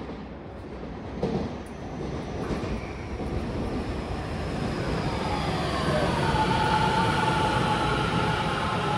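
Tobu 50000-series electric commuter train pulling into the station. The wheel and track rumble grows louder as it comes alongside, with a couple of sharp knocks early on. A whine from the motors falls in pitch as it brakes, then holds steady.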